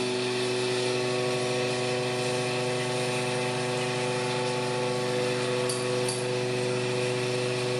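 Sunnen CV-616 vertical honing machine running steadily while honing a cylinder bore of a sleeved Subaru EJ25 boxer block: an even, unchanging mechanical hum.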